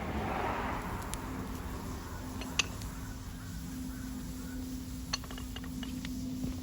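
Outdoor ambience of a steady low rumble, like wind on the microphone, with a low steady hum and a handful of sharp clicks and snaps, one loud one about two and a half seconds in and a cluster near the end.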